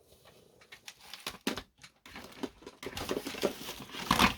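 Irregular clicks, taps and rustling from small tools, cables and a connector being handled on a workbench, getting busier about a second in and loudest near the end.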